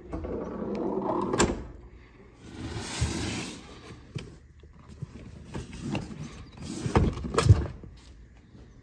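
Handling noise as the rear seat of an MGC GT is taken out: rustling and scraping of the seat's vinyl and backing board against the car's interior, with a sharp click about a second and a half in and a longer sliding scrape soon after. Near the end come two thumps about half a second apart, the second the loudest.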